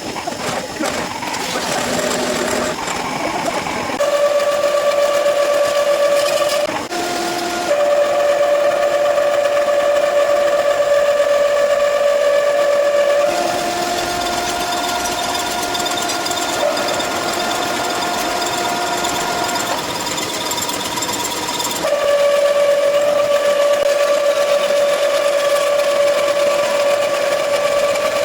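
Ernault Cholet metal lathe running with a steady whine that shifts between a lower and a higher pitch several times, with a short rougher, noisier stretch about two-thirds of the way through.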